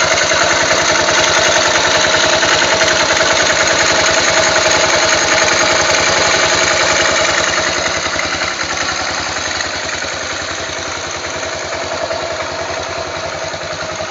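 Yamaha XT500 single-cylinder four-stroke engine idling with a steady, even beat and plenty of top-end mechanical noise, just after its cam chain tensioner was adjusted. It grows somewhat quieter about seven or eight seconds in.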